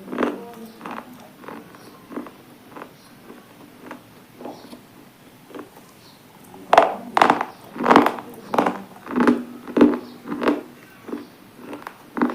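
Close-up crunching and chewing of brittle slate or clay-type pieces in the mouth. Soft bites come first, then from about seven seconds a run of loud, sharp crunches in a steady chewing rhythm, roughly two every second or a bit slower.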